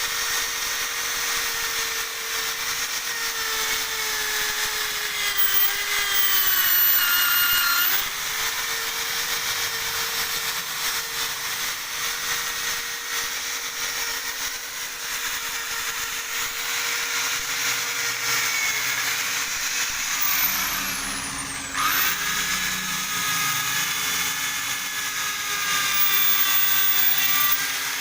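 Electric drill spinning a wire brush against metal, a steady motor whine under a harsh scraping hiss as rust and grime are brushed off. The motor's pitch sags when the brush is pressed harder, and about three-quarters of the way through it slows sharply and speeds up again.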